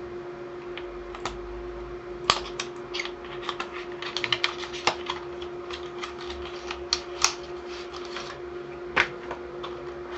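RAM kit packaging being opened by hand, the cardboard box and clear plastic clamshell tray handled: a run of irregular crackles and clicks, some loud, over a steady hum.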